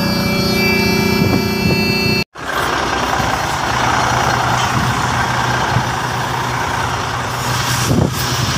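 Heavy truck's engine idling steadily, heard first from inside the cab; the sound drops out for a moment a couple of seconds in, then the idle drone carries on outside, mixed with a broader noise.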